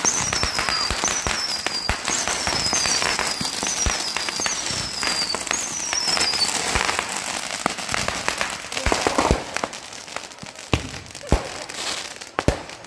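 Consumer fireworks going off: dense crackling with about seven short whistles, each falling in pitch, over the first six or so seconds, then scattered sharp bangs and crackles.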